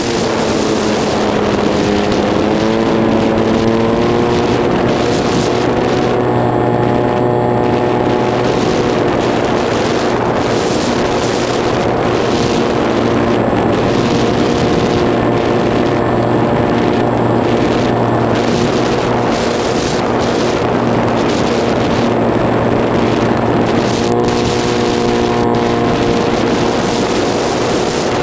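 Electric pusher motor and propeller of an EasyStar II RC model plane in flight, heard from on board: a steady whine that rises in pitch a couple of seconds in, sits lower through the middle and rises again near the end as the throttle changes, over the rush of wind past the airframe.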